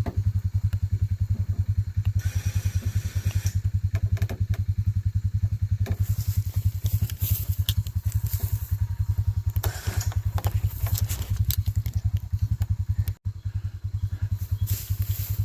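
Small engine running steadily at an even, pulsing idle, with scattered light clicks and clatter over it.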